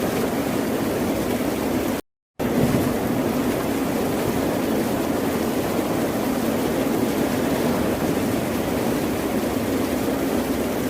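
Steady ocean surf: a dense, unbroken wash of wave noise. About two seconds in it cuts to total silence for under half a second, then resumes: a splice in the recording.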